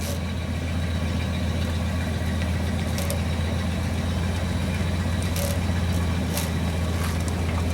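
A vehicle engine running steadily at low speed, with a few faint clicks.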